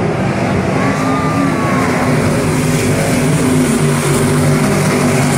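A field of IMCA stock cars' V8 engines running at racing speed around a dirt oval, a loud, steady drone of several engines at once.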